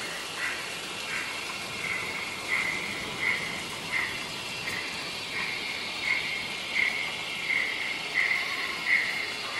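Bachmann Baldwin 009 model steam locomotive's sound-decoder speaker chuffing at a slow, even beat of about one and a half chuffs a second, getting louder as the train approaches, over a steady hiss.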